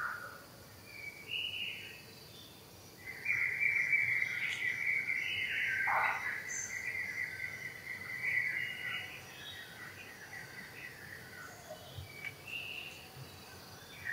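Outdoor insect and bird sounds: a faint steady high insect hum with scattered short bird chirps, and a louder steady insect buzz that starts about three seconds in and fades after about six seconds.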